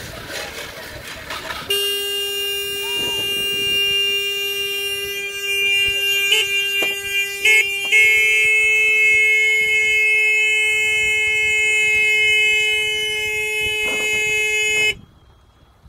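A loud, steady, horn-like tone held for about thirteen seconds. It steps up in pitch briefly twice, settles slightly higher about halfway through, then cuts off abruptly near the end.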